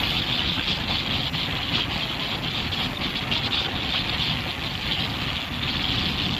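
Steady engine and road noise of a vehicle travelling at speed on a highway: a low rumble under a strong, even hiss, with no breaks or changes.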